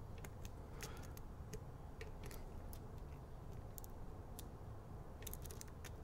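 Faint, irregular metal clicks and ticks of a lock pick working the pins of a Master Lock Street Cuffs tubular lock as they are probed one at a time, with a quick cluster of clicks near the end.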